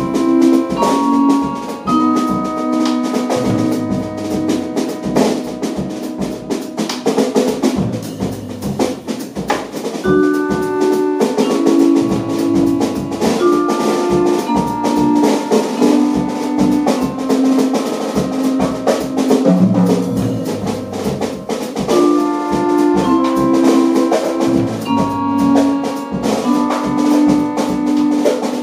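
Small jazz band playing live: a drum kit with an accordion, mallet percussion and double bass. Held chords change every second or two over a busy drum pattern.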